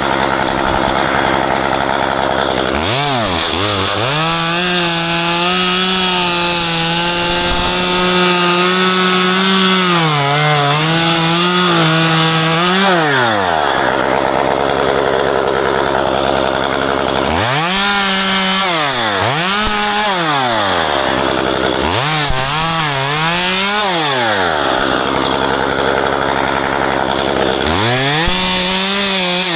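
Two-stroke gasoline chainsaw revved to full throttle and held there for several seconds, then dropping back toward idle, and revved up and down again in a few shorter bursts near the middle and end, during tree pruning.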